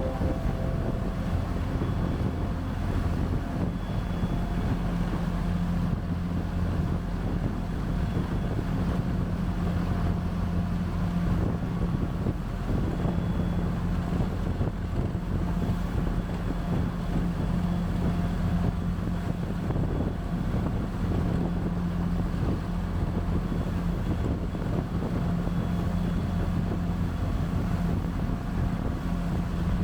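A passenger boat's engine running steadily under way, a constant low drone with wind buffeting the microphone.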